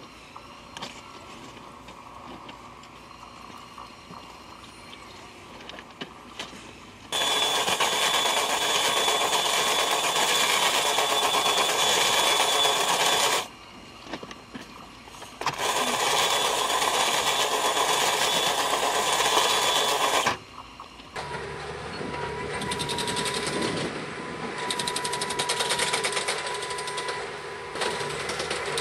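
Rail drill boring bolt holes through the web of a steel rail, running loud with a steady high whine in two long stretches separated by a short pause. From about three-quarters of the way in, the sound changes to a track maintenance machine's engine running steadily with a constant hum.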